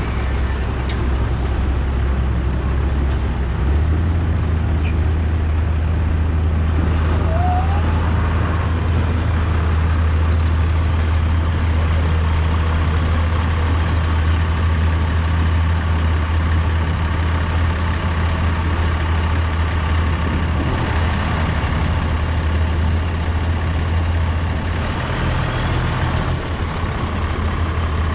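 Large diesel engine running at a steady speed, a low even drone that grows a little fuller a few seconds in.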